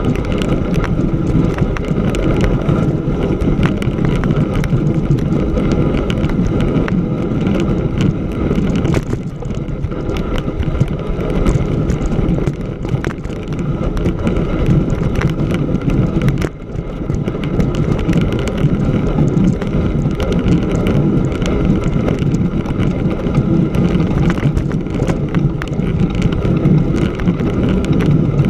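Bicycle with a wide knobby tyre rolling over snow on frozen lake ice: a steady low rumble of tyre on snow with constant crackle and rattle. It eases briefly twice, about a third and about halfway in.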